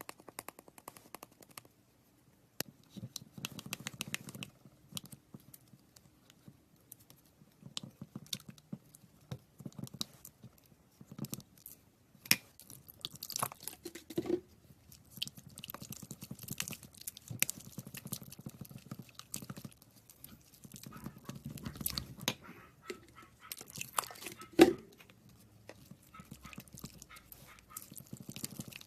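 Slime being squeezed, poked and stretched by hand, giving dense irregular crackling and crunching with sticky popping clicks. There is one louder pop a little before the end.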